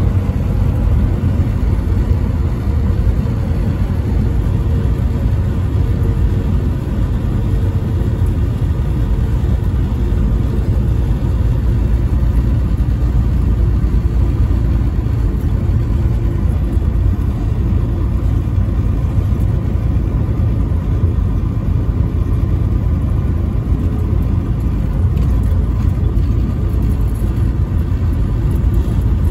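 Steady road and engine noise heard inside a vehicle cruising on a highway: a constant low rumble with a faint steady hum above it.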